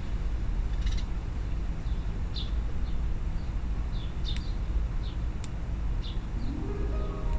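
Small birds chirping: short, high chirps at irregular intervals, a second or so apart, over a steady low rumble.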